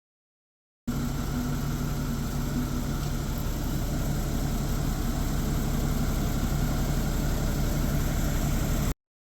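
A machine running steadily with a low, even hum, starting abruptly about a second in and cutting off abruptly near the end.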